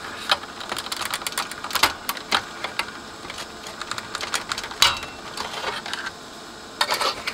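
Irregular sharp clicks and scrapes of a screwdriver levering circuit boards up out of their plastic clips and connectors inside a Technics SU-X502 amplifier, with a quick run of clicks near the end.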